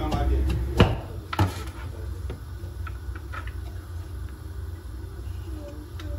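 Two sharp knocks about a second in, then a few lighter clicks, over a low steady hum.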